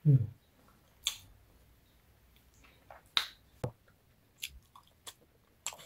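A person eating roasted sweet potato and salad close to the microphone: scattered short wet mouth clicks and smacks of chewing. It opens with a short low vocal murmur that falls in pitch.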